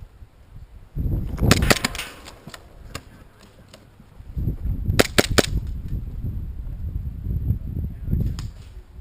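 Airsoft pistol shots: a quick string of several sharp cracks about a second and a half in, then three more in fast succession about five seconds in, with a low rumble on the microphone around them.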